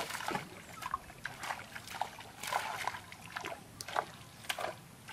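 Water splashing and sloshing in short, irregular bursts as a cast net is hauled in by hand.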